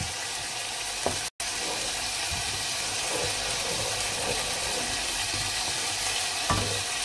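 Water added to a pot of fried onion-and-yogurt curry masala, sizzling and bubbling in the hot oil as it is stirred with a wooden spoon to make the gravy. The steady sizzle breaks off for an instant a little over a second in.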